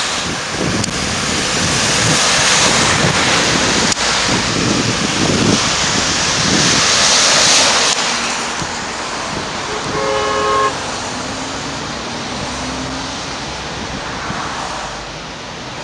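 Traffic driving past on a wet, slushy road, tyres hissing on the wet surface. About ten seconds in, a vehicle horn sounds one short blast of two notes together.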